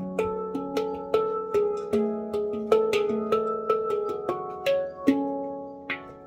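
Handpan played with the fingers in a free improvisation: single notes struck about three times a second, each ringing on and overlapping the next.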